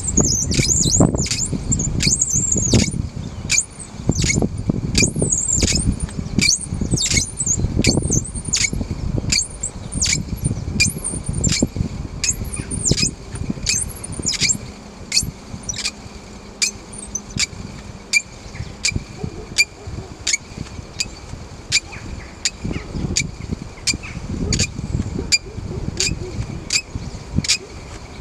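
Bow drill in use: the wooden spindle squeaks against the hearth board and bearing block with each stroke of the bow, about twice a second, with a dry rubbing under it. The spindle is burning into the hearth board at the start of the fire-lighting process. The squeaks are high and sliding at first, then shorter and more even.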